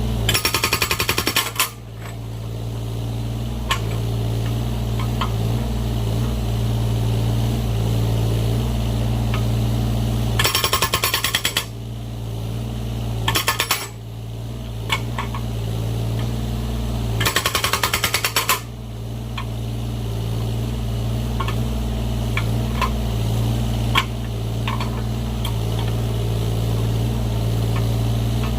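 Excavator-mounted hydraulic breaker splitting firewood logs, hammering in four short bursts of rapid blows. Under it the excavator's engine runs steadily, with occasional single knocks.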